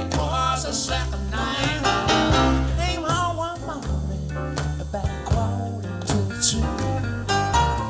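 A bluesy rock song played back through Advent Laureate loudspeakers, with a bass line stepping between notes under wavering melodic lines.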